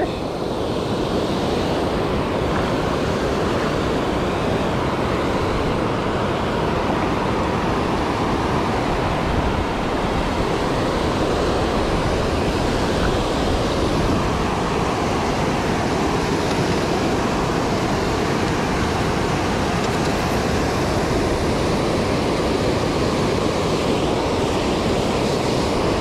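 Water pouring over a low river spillway: a steady, unbroken rush of falling and churning water.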